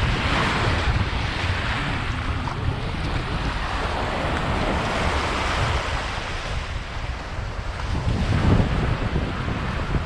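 Small waves washing onto a sandy beach, a steady surf hiss that is strongest in the first couple of seconds, with wind buffeting the microphone as a low rumble throughout and a stronger gust near the end.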